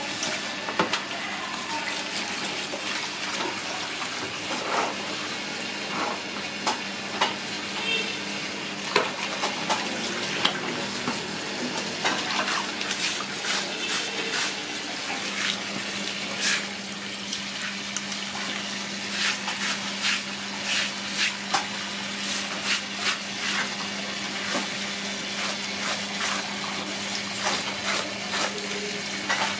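Water running from a garden hose into a plastic basin while hands scrub and rinse a skinned snake carcass, with many short wet slaps and squelches that come thicker in the second half.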